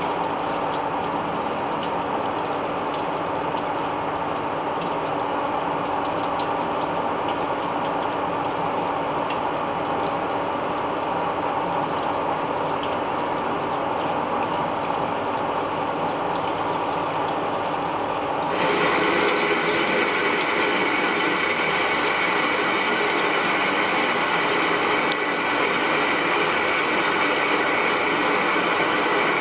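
CNC lathe turning a metal workpiece: steady machine running with several steady tones and faint ticks of the cut. About two-thirds through it becomes suddenly louder and brighter, then runs on steadily.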